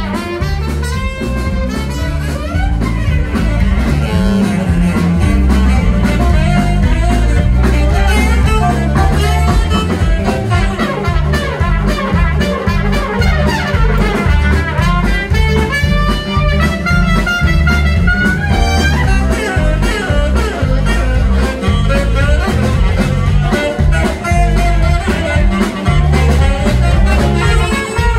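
Live band playing an upbeat number, trumpet and saxophone over electric guitar, bass and drums.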